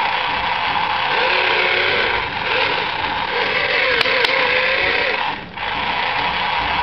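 Small electric motors and gearboxes of a radio-controlled wheeled excavator whirring as the boom, arm and bucket move, with whines that rise and fall in pitch. Two sharp clicks about four seconds in, and the whirring drops out for a moment about five and a half seconds in.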